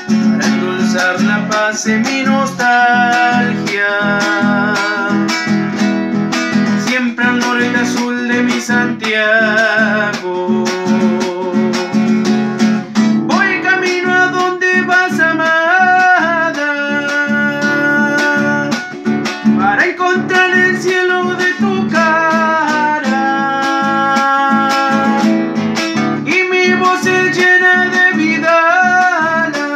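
Acoustic guitar strummed in a steady rhythm while a man sings along, holding long notes with vibrato that become more prominent about halfway through.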